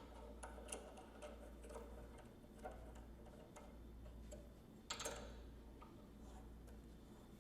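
Faint, scattered metal clicks from a crank arm bolt and tools being handled as a bicycle crank arm is refitted, over a low steady hum. The loudest click comes about five seconds in.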